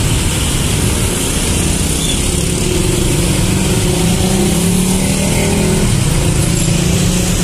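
Heavy traffic of motor scooters and motorcycles, with cars and a truck, moving past close by: a steady din of many small engines running, their pitches wavering as riders speed up.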